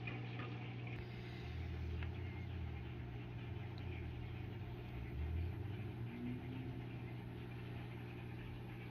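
Steady low electrical hum of running aquarium equipment such as filters and air pumps, with some low rumbling in the middle.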